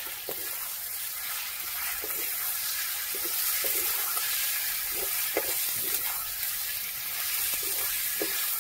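Chicken with tomatoes and onion-garlic masala frying in a pan, a steady sizzle, with short scrapes and knocks of a spoon stirring now and then.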